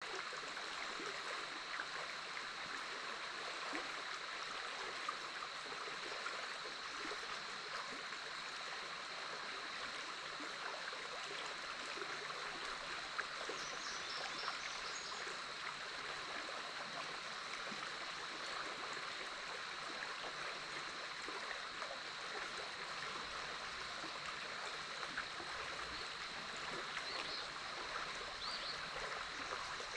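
Big Otter River water flowing steadily past the bank, a constant rushing and trickling. A steady high-pitched hum runs under it, and a few short high chirps come about halfway through and again near the end.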